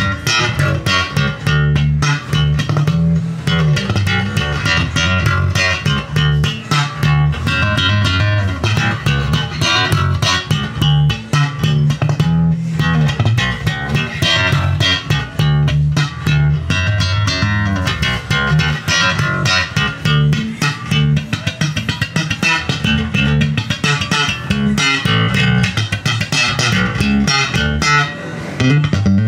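Electric bass guitar being played: a continuous run of plucked low notes.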